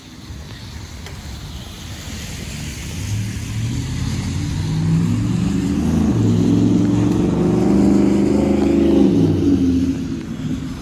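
A motor vehicle passes close by on a wet street, its engine accelerating with stepping rises in pitch and its tyres hissing on the wet road. It builds up over several seconds, is loudest about two-thirds of the way in, then fades.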